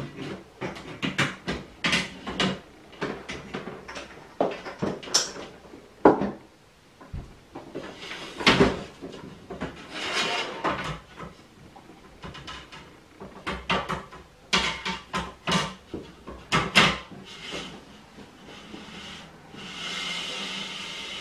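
Handling noise from an aluminium snake rack being worked on: a run of irregular knocks, clicks and scrapes of metal shelving, with stretches of rustling as the heat panel and its plastic cover are handled, the longest near the end.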